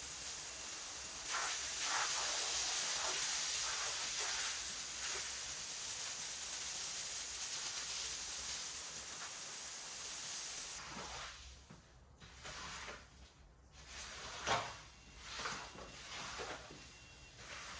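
Pressure-washer jet spraying water onto a rug and tiled floor, a steady hiss that grows louder about a second in and cuts off about eleven seconds in. Then a few irregular strokes of a floor squeegee pushing water across the wet tiles.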